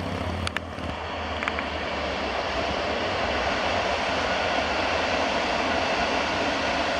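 PKP Intercity passenger coaches rolling past on the rails: a steady rush of wheel and rail noise that builds over the first couple of seconds and then holds.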